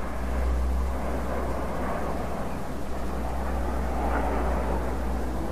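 Nine BAE Hawk T1 jets flying over in formation: a steady, even jet roar with a deep rumble underneath.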